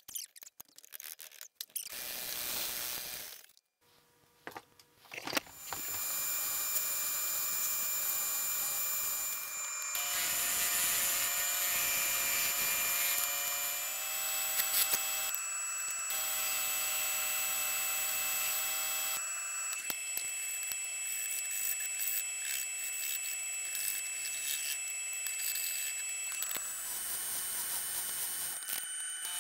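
Woodworking power tools running in turn as a wooden handle blank is cut and sanded: a scroll saw, a sanding drum and a belt sander, each a steady motor whine with wood rasping on the blade or abrasive. The first few seconds are broken up, with a short near-silent gap; then the machine sound runs steadily, its pitch and character switching abruptly several times.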